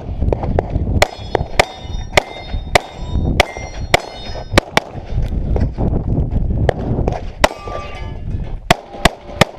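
Pistol shots fired in quick succession, about one every half second, with the gaps between strings. Many hits are answered by the metallic ring of steel targets.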